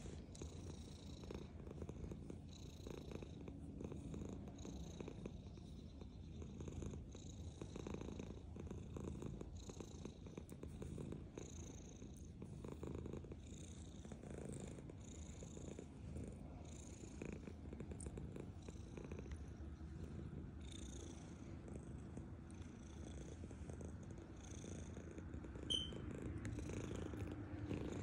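Domestic cat purring steadily, close up. A short sharp click a little before the end.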